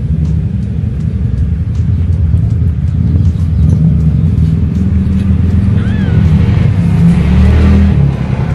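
A mother cat purring, a steady low rumble, with one short high squeak from a kitten about six seconds in.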